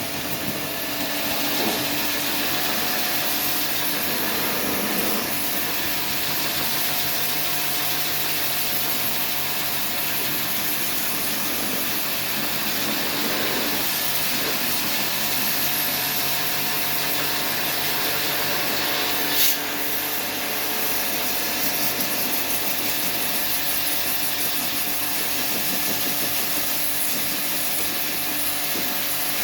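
Window air conditioner running: a steady rush of fan air over a constant motor and compressor hum, with a single sharp click about 19 seconds in.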